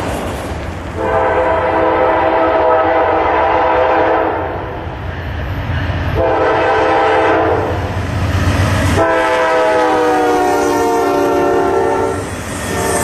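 Norfolk Southern diesel locomotive's multi-chime air horn blowing three long blasts as the train approaches. The third blast drops in pitch as the lead locomotive passes. The low rumble of the diesel locomotives runs underneath.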